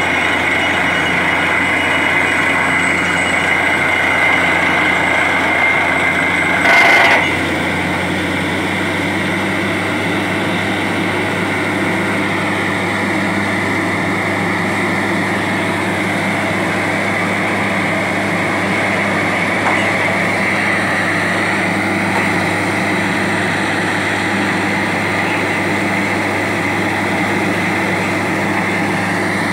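Truck-mounted borewell drilling rig running steadily as it drills, its engine and air compressor droning, with cuttings blown out of the hole by the air. A brief louder burst comes about seven seconds in.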